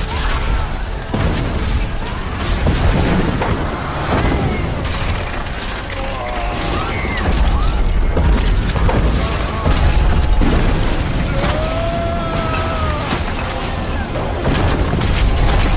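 Film sound of a stone temple collapsing: heavy rumbling and repeated crashes of falling masonry and pillars, with dramatic orchestral music over it.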